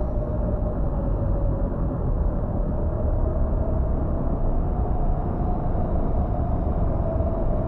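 Howling wind: a steady rumbling rush of air with a wavering, whistle-like moan held at one pitch that drifts slightly up and down.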